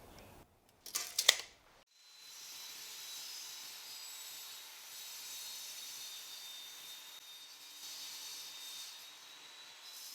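A couple of sharp knocks, then a power saw running and cutting through a pine board to length: a steady high hiss with a thin whine held for about eight seconds, tapering off near the end.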